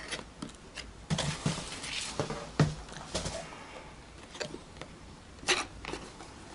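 Cardboard retail box being opened and handled by hand: scattered rustles, scrapes and small knocks of the packaging, with one sharper rustle about five and a half seconds in.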